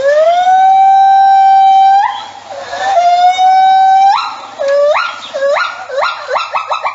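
A young animal crying: two long, steady, high cries of more than a second each that bend upward at their ends, then a run of short rising cries that come quicker toward the end.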